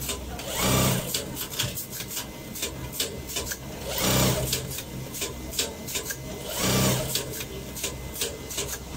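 Automated motor winding machine's loading and transfer system running through its cycle: a steady patter of small mechanical clicks, with a louder burst of machine noise about every two and a half seconds, three times.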